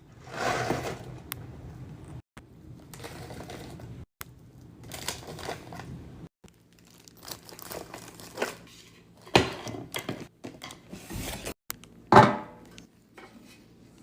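Rustling and crinkling of packaging with light clicks and knocks as groceries are handled and put away, in short bursts broken by abrupt cuts. The loudest bursts come about half a second in, just past nine seconds, and around twelve seconds.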